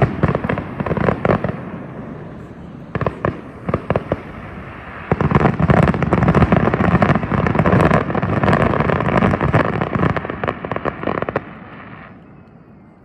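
Fireworks grand finale: rapid barrages of bangs and crackling. It thins out about two seconds in, builds into a continuous volley from about five seconds, then stops and fades away near the end.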